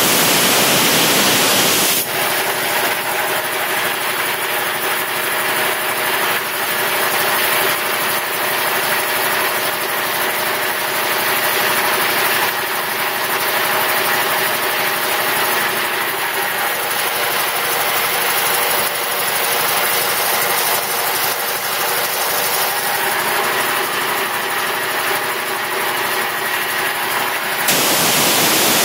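Quincy QR-325 belt-driven reciprocating air compressor running under load, its electric motor and pump pumping up the tank. It starts just before, is louder and harsher for about the first two seconds, then settles into a steady run.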